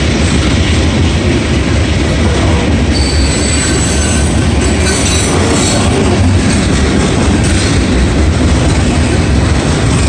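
Loaded covered hopper cars of a CSX freight train rolling past: a loud, steady rumble of steel wheels on rail. From about three seconds in, a high wheel squeal rises over it for a couple of seconds.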